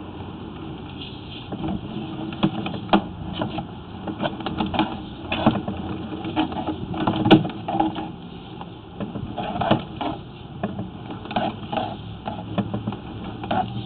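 Sewer inspection camera's push cable being pulled back out of the pipe, with irregular clicks and knocks, several a second, over a low rustle. The loudest knock comes about seven seconds in.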